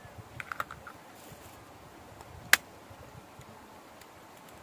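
An eggshell being cracked with a cleaver: a few light clicks in the first second, then one sharp crack about two and a half seconds in.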